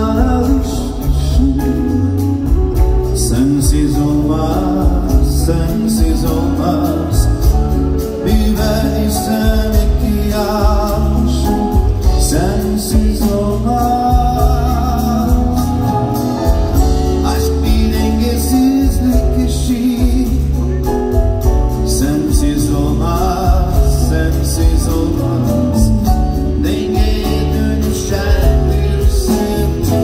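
Live band music: double bass, electric guitars and drums playing a steady groove, with a man singing over it.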